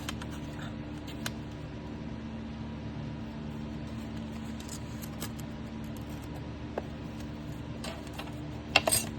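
Paper handling at a craft desk: a few faint taps, then a brief crisp crackle of paper near the end, over a steady low hum.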